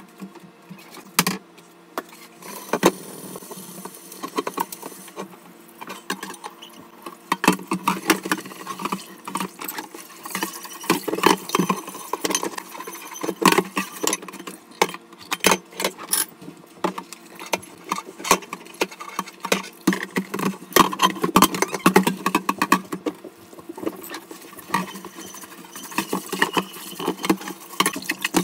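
Stainless steel saucepan being rinsed under a running tap in a stainless steel sink: irregular metallic clanks and knocks of the pan against the sink, with splashing water and a steady low hum underneath.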